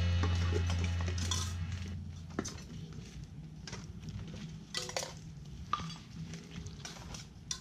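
Background music ringing out and fading away, followed by a few scattered light clinks and clicks.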